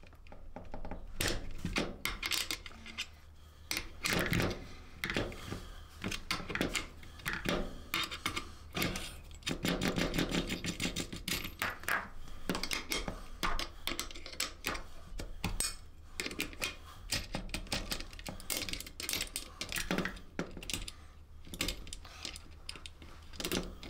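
Metal spanner clinking and clicking against the indicator nuts and the plastic rear fender while the nuts holding the stock indicators are undone, with the parts handled and shifted on the bench: an irregular run of light clicks and rattles.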